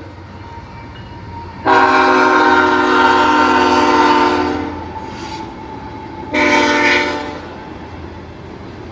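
BNSF freight locomotive's multi-note air horn sounding a long blast and then a short one, part of the long-long-short-long signal for a grade crossing. The train's steady low rumble runs underneath as the locomotives and cars roll by.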